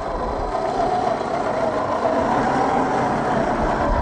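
Drivetrain of a 1/10-scale Defender 90 RC car whining steadily as it drives, the pitch rising a little about half a second in and then holding.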